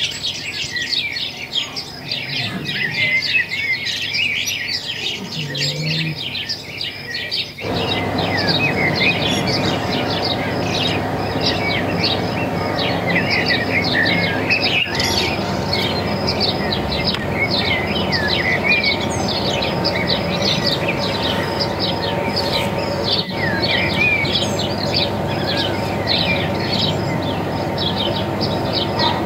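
Many small birds chirping and twittering together in a dense, continuous chorus. About eight seconds in, a steady low noise begins underneath and carries on.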